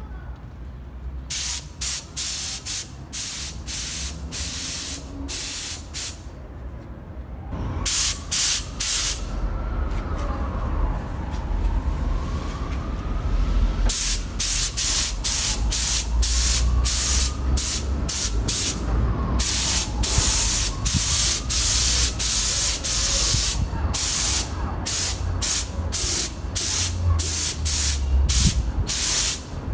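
Compressed-air gravity-feed spray gun spraying two-part primer: the air-and-paint hiss comes on and off in repeated short trigger pulls. The pulls grow longer and closer together in the second half.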